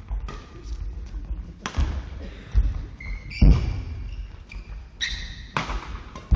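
Badminton rally on a sports hall court: players' feet thudding on the floor and racket hits on the shuttlecock, about six impacts at uneven intervals, with short shoe squeaks between them, echoing in the hall.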